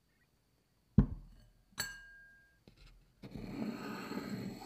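A ceramic bowl is set down on the table with a sharp knock about a second in, then a second clink that rings briefly. Near the end a wooden stick is drawn through a bowl of flour with a steady soft scraping rustle.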